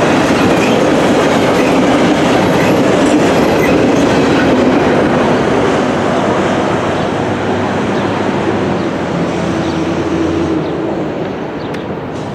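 Norfolk Southern freight train of covered hopper cars rolling past, steel wheels running over the rails. The last cars go by and the sound slowly fades as the train moves away.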